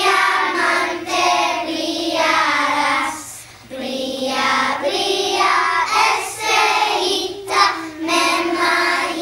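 A class of first-grade children singing together in unison, with a short pause for breath about three and a half seconds in.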